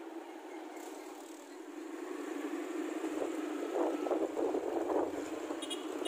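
Riding a small motorcycle through town traffic: engine and traffic noise, louder from about halfway through.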